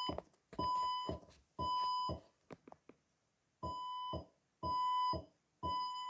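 Fire-Lite voice evacuation system sounding its temporal-three alert tone between evacuation messages: two groups of three half-second beeps at one steady high pitch, a second apart, with a longer pause between the groups. This is the standard fire-evacuation signal.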